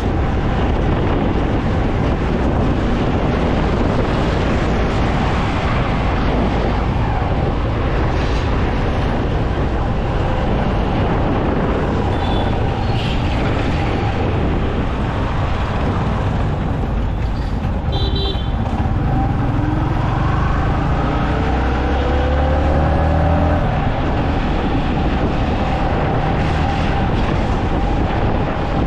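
Busy road traffic heard on the move: a steady rumble of engines and tyres, with a couple of short horn beeps midway and an engine revving up, its pitch rising, near the end.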